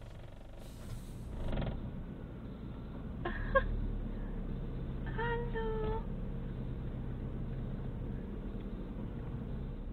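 Low steady rumble of a car creeping along an unpaved forest track, heard from inside the car. Two short high-pitched cries stand out, one about three seconds in and a longer, slightly falling one about five seconds in.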